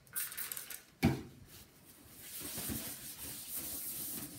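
A short spritz from a plastic trigger spray bottle, then a knock as the bottle is set down on the desk about a second in. After that a paper towel rubs steadily over the CRT monitor's plastic case as it is wiped clean.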